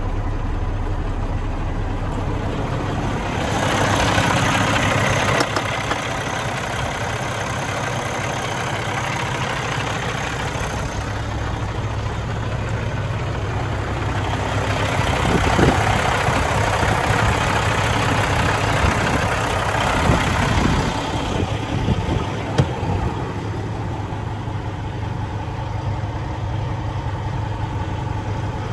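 Diesel engine of a 2018 Kenworth T680 semi-truck idling steadily. It comes through brighter and fuller for a couple of seconds near the start and again through the middle, with a few light knocks.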